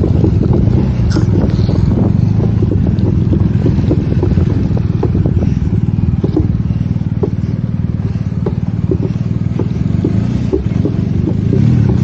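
Motorcycle engine running steadily while riding, with scattered short knocks and rattles over it.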